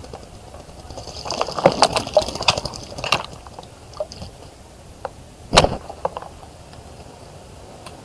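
Birds splashing in a bird bath: a run of splashes and wing flutters in the first few seconds, then one sharp splash about five and a half seconds in.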